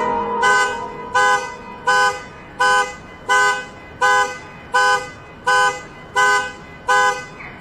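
A car alarm sounding the horn in short honks at a steady rhythm, about one and a half a second.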